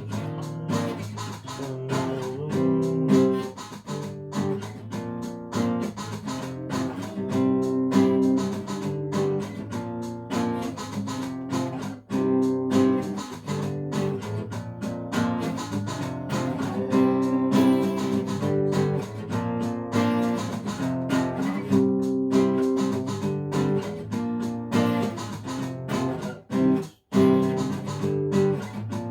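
Guitar music, plucked and strummed, with repeating phrases and a momentary break near the end.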